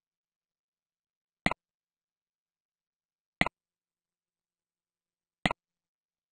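Three computer mouse clicks about two seconds apart, each a quick press-and-release double click.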